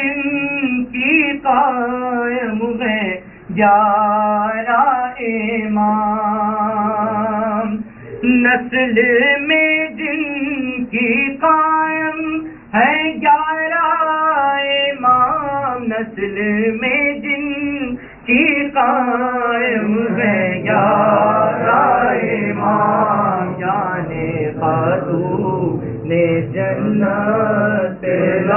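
A man singing an Urdu salaam unaccompanied in a chant-like recitation, with long held, wavering notes. From about 20 seconds in, a group of men's voices joins in chorus.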